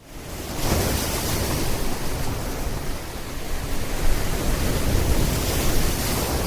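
Steady, even rushing noise with no distinct events, starting right after a brief cut to silence.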